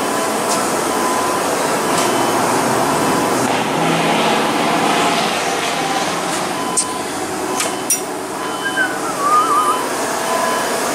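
Air-powered vacuum fluid extractor hissing steadily as shop air rushes through it. A few sharp clicks sound a little past halfway, and a short wavering squeak comes about nine seconds in.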